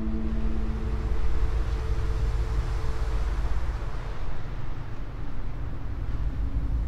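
Deep, steady ambient drone with a rushing wash of noise that swells around the middle. A ringing gong-like tone dies away about a second in.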